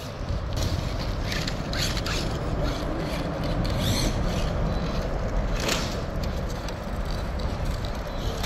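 Axial Ryft RC rock bouncer's electric motor and drivetrain running, a steady whine with a low rumble, broken by several short scrapes as the truck works over rough ground.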